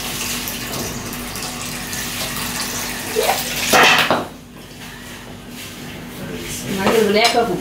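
Coconut water running from a knife-cracked coconut into a stainless steel bowl, with a louder gush a little under four seconds in as the shell splits into halves. A person's voice near the end.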